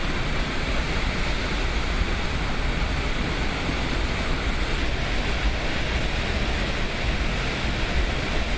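Floodwater rushing in a flash flood: a loud, steady, dense noise of churning water with a heavy low rumble.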